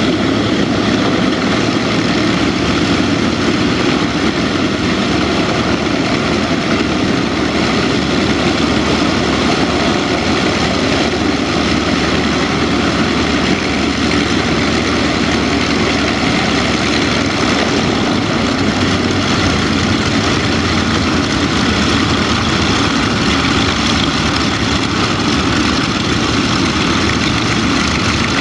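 The Martin Mars flying boat's four radial piston engines running steadily at low power as it taxis on the water: a continuous, even propeller drone.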